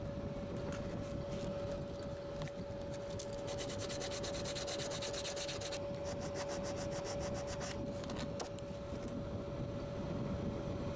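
Sandpaper rubbed by hand over the end of a turned wooden spindle, a scratchy back-and-forth scraping that turns into a run of rapid strokes about three to six seconds in. A steady hum sits underneath.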